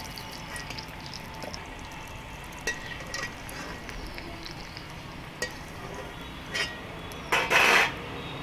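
Sabudana vadas frying in hot oil in a steel kadai with a steady sizzle. A long slotted steel spoon gives a few light clinks against the pan, and there is a louder, brief rush of noise near the end.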